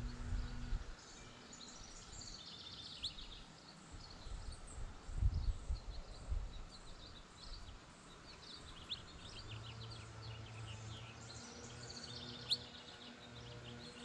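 Songbirds chirping and twittering in quick runs of high notes, in three spells. A short low rumble comes about five seconds in, over a faint steady low hum.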